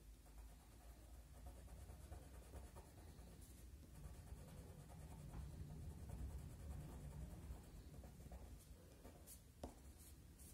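Faint, steady scratching of a watercolour pencil shading on textured watercolour paper.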